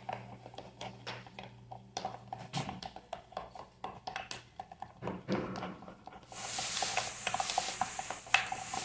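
A spoon stirring a glue-based slime mixture in a small plastic pot, with irregular scrapes and light clicks. About six seconds in, a steady hiss starts and continues.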